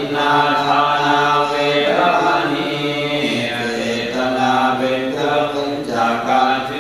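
Thai Buddhist chanting: voices intoning a chant on long held notes that shift slowly in pitch, pausing briefly for breath once or twice.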